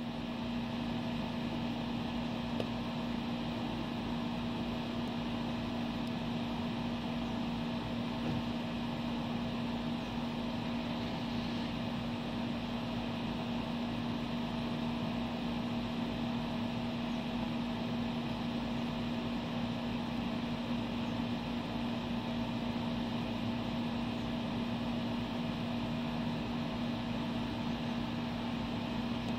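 Steady mechanical hum with one strong low tone and a few fainter higher ones, over an even hiss.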